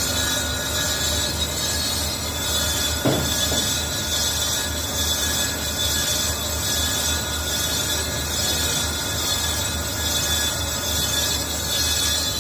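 Lathe facing a wheel brake drum: the cutting tool makes a steady high-pitched metallic noise over the low hum of the machine. A single short knock comes about three seconds in.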